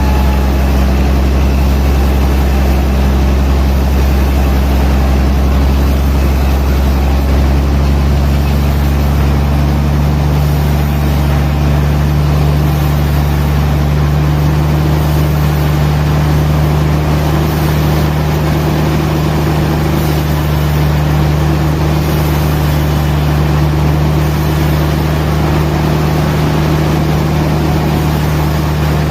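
Sawmill machinery running steadily with a deep engine hum; its pitch rises slightly about twelve seconds in.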